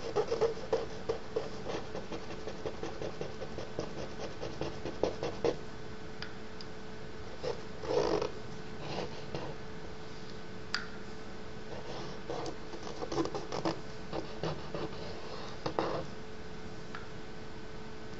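A thin wooden stick loaded with ink scratching and scraping across paper in irregular runs of quick strokes, busiest at the start, about eight seconds in, and between thirteen and sixteen seconds. A faint steady hum runs underneath.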